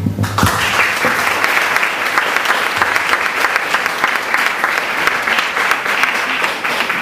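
Audience applauding: dense, steady clapping that starts a fraction of a second in and keeps going.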